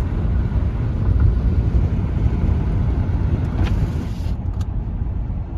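Car driving, with a steady low road rumble heard from inside the cabin. A brief hiss rises over it about two-thirds of the way through.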